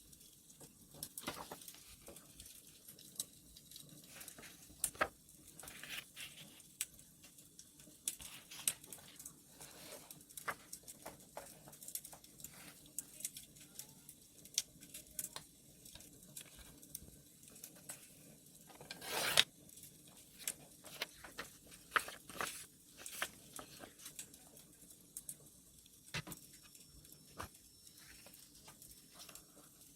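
Irregular pops and crackles of a wood fire under small paper-crafting sounds: taps, rustles and paper being handled, with one louder, longer rasp of paper past the middle.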